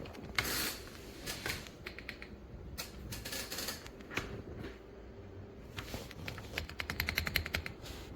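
Typing on an EPOMAKER x Aula F75 gasket-mounted mechanical keyboard with Ice Vein switches: uneven bursts of keystrokes that quicken into a fast run over the last couple of seconds.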